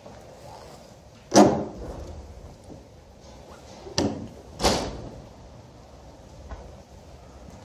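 Three heavy bangs of wooden panels, like a cupboard or door slamming, each ringing briefly in a bare room. The first, about a second and a half in, is the loudest; the other two come close together near the middle.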